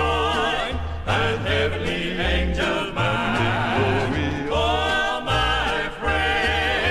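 Southern gospel male quartet singing in close harmony with instrumental backing, a bass line moving underneath in a steady rhythm.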